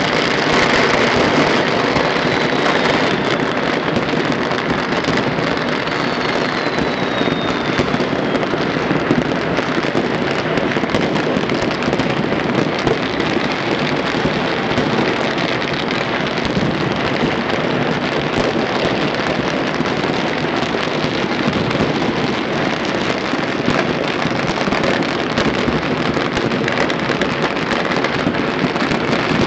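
Dense, unbroken crackle of many firecrackers and fireworks going off at once for Chinese New Year, with a falling whistle twice in the first ten seconds.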